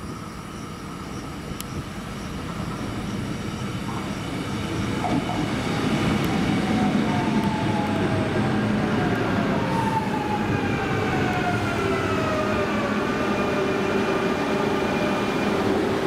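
CP series 2240 electric multiple unit pulling into the platform. Its motor whine falls in pitch as it brakes, and it settles to a steady hum as it comes to a stand.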